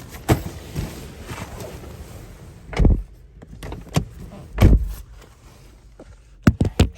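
A series of dull thumps and knocks, the two heaviest a little under 3 s in and near 5 s in, with two quick sharp clicks near the end.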